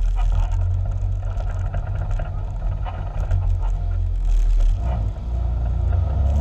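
Side-by-side UTV engine running at low speed over a rocky dirt trail, a steady low drone with knocks and rattles from the rough ground.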